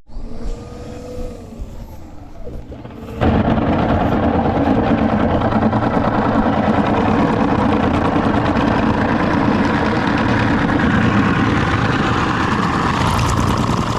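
Power drill boring a 2-inch hole through the basement wall, running under load. It starts suddenly about three seconds in, runs steadily and loudly, and eases off near the end.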